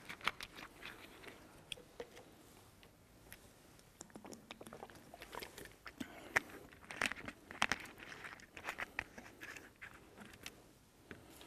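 Faint, irregular clicks, crackles and scrapes of things being handled, coming in clusters and busiest in the middle and later part.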